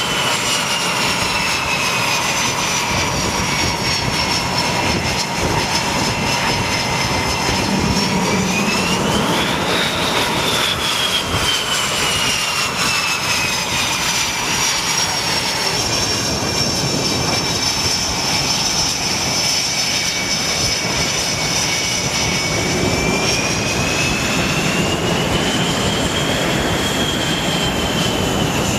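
F/A-18 Hornet's twin jet engines running at close range as the jet taxis past: a loud, steady rush with a high whine that dips and rises twice.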